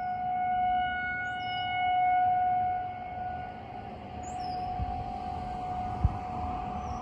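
Distant tornado warning sirens sounding one steady tone, swelling and fading in loudness. A few faint bird chirps are heard, and there is one sharp click about six seconds in.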